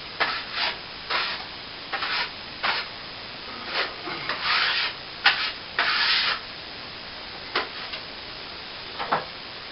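Short, irregular scraping strokes of a plastering tool working cornice cement over a wall surface, a few of them longer drags, growing sparser near the end.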